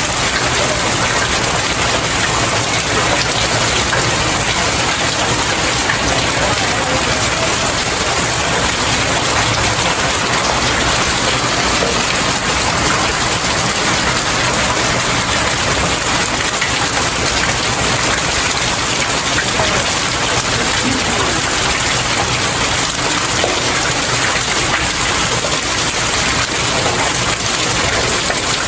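Steady rain falling on stairs, an even unbroken hiss of drops on the surface.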